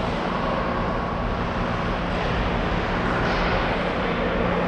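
Steady hum and rumble of an ice hockey arena during play.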